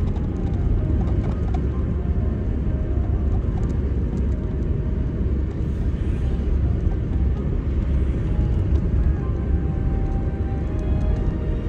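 Steady low rumble of a car driving: road and engine noise with no letup.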